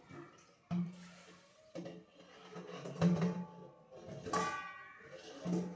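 Large stainless steel cooking pot being washed under a running tap, knocking against the metal sink several times and ringing briefly after each knock, with water splashing.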